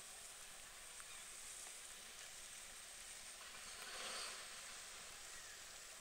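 Faint, steady outdoor background hiss, swelling briefly about four seconds in.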